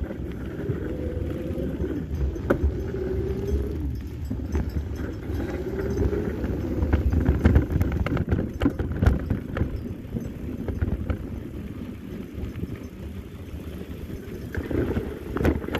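Mountain bike riding down a dry dirt singletrack: a steady low rumble of tyres and the moving bike, with frequent sharp clicks and rattles as it jolts over the rough trail.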